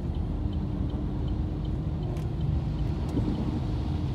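Car running at low speed, heard from inside the cabin: a steady low rumble of engine and road noise, with a faint, evenly spaced ticking.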